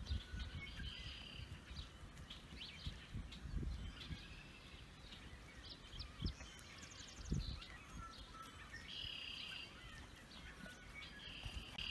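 Faint outdoor ambience: small birds chirping in short, repeated high calls, with a quick trill about two-thirds of the way through, over an uneven low rumble.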